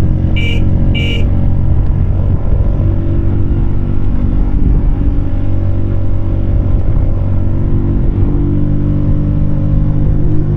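Keeway K-Light 125's small V-twin engine running while the bike is ridden, its note shifting a few times as the throttle changes. Two short high beeps about half a second apart near the start.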